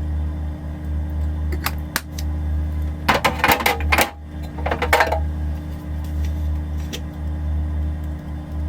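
A few sharp clicks, then two bursts of clinking, clattering rattle about three and five seconds in, over a steady low hum.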